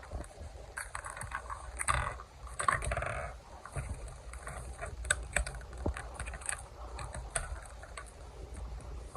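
Handling of EarPods packaging: scattered small plastic clicks and taps, with a couple of brief rustling scrapes about two and three seconds in.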